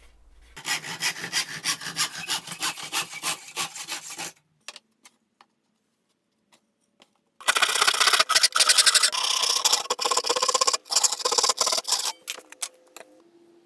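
Hand saw cutting plywood in quick back-and-forth strokes, about three a second in the first stretch. There are two bouts of sawing with a near-silent pause between them.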